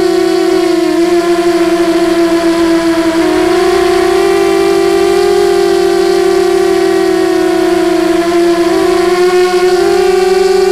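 FPV 250 quadcopter's DYS 1806 2300KV brushless motors and propellers whining steadily, heard from the onboard camera. The pitch dips and comes back up twice.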